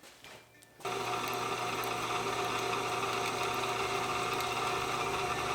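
Electric drill press motor switched on less than a second in, then running steadily with an even hum and whine, ready to drill aluminum.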